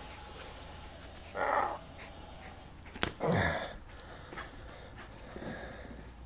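A pet dog making two short vocal sounds about two seconds apart while playing with a plush toy monkey. A sharp click comes just before the second sound.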